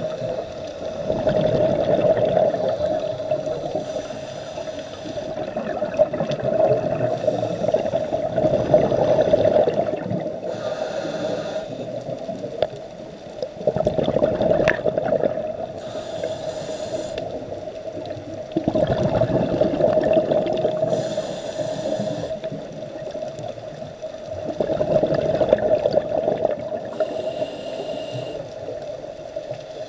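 Scuba diver breathing through a regulator underwater: a hiss of inhalation followed by a long burst of bubbling exhalation, repeating about every five seconds, over a steady hum.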